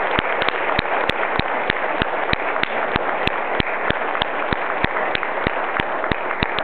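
Audience applauding, with one person's sharp claps close by at about three a second standing out over the steady clapping of the crowd.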